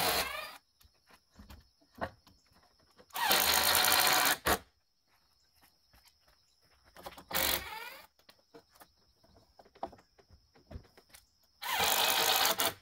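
Cordless drill driving screws into wooden framing: four separate runs of the motor whirring, one of them about a second and a half long, each spinning up quickly, with quiet pauses between.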